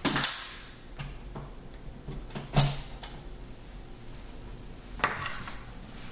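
A few scattered sharp clicks and knocks, the loudest about two and a half seconds in, over a faint steady background hiss.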